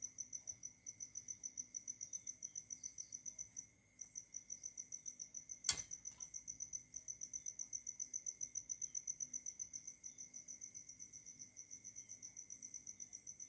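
Insect chirping in a steady run of high-pitched pulses, about six a second, with a short break a little under four seconds in. A single sharp click sounds just before six seconds in.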